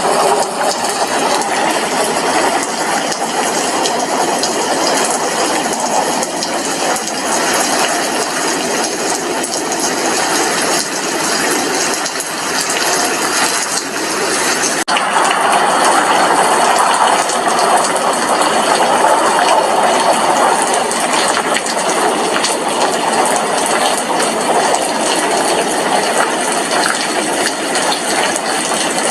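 Steady heavy rain, with dense drops pattering on window glass. There is a brief break about halfway through.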